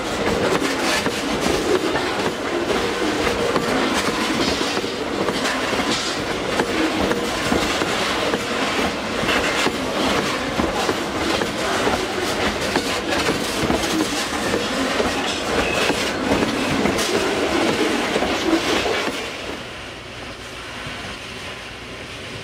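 Loaded ore gondola cars of a freight train rolling past close by, their wheels rumbling and clicking over the rail. About nineteen seconds in the last car goes by and the sound falls away as it moves off down the track.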